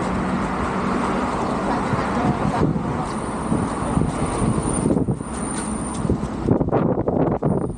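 Steady road traffic noise from cars on a multi-lane road alongside. About two and a half seconds in, the sound turns duller and more uneven.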